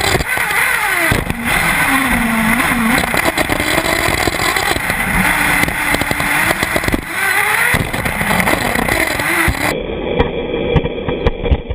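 Intech BR-5 1/8-scale nitro buggy's engine revving up and dropping back again and again, heard close up from on top of the car, with sharp knocks from the chassis landing and hitting bumps, one about a second in and several near the end.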